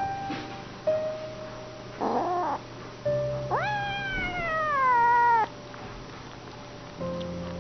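A cat gives one long meow about three and a half seconds in, rising quickly and then falling slowly in pitch, over background music.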